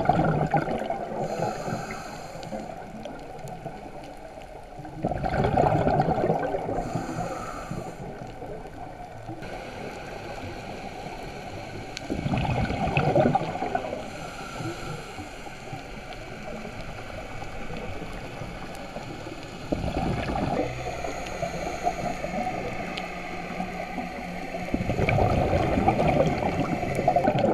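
Underwater bubbling from a scuba diver's regulator exhaust: a surge of bubbles rushes out about every six to seven seconds, four times, with a softer water hiss between the breaths.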